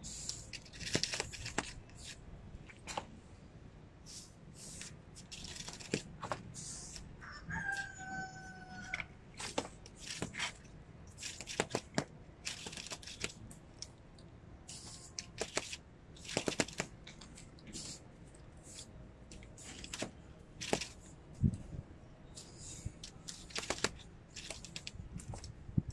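Scattered sharp clicks and crackles close to the microphone, and a rooster crowing once about eight seconds in.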